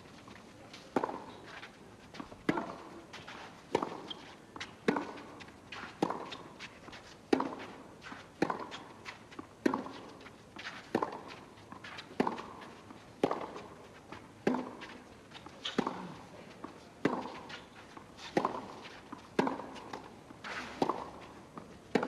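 Tennis ball struck back and forth in a long rally on a clay court: sharp racket hits at about one a second, going on steadily through the whole exchange.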